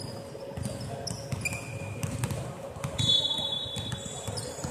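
Basketball thudding on a hardwood court, with sneakers squeaking sharply on the floor; the loudest squeal comes about three seconds in. Players' voices echo in a large hall.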